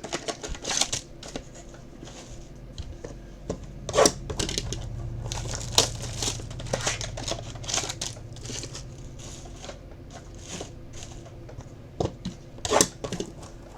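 Baseball card pack wrappers and packaging being crinkled and torn open, with scattered sharp crackles and taps as the cards are handled.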